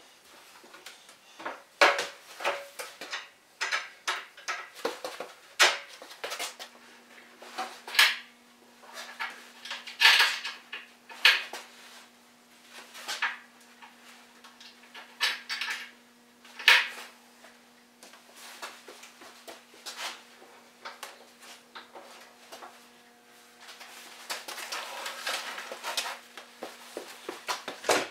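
Metal bar clamps being handled and set on a glued-up table edge: irregular metallic clinks, clanks and sharp knocks, coming thicker near the end.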